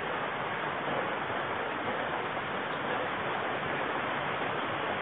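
Steady rush of a mountain river flowing over rocks and boulders, an even hiss without a break.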